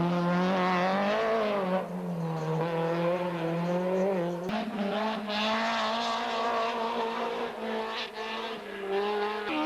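Racing car engine revving hard, its pitch rising and dipping with throttle and gear changes. The sound shifts abruptly about four and a half seconds in.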